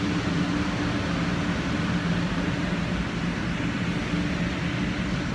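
Steady mechanical hum: a constant noisy hiss with two steady low tones, unchanging throughout.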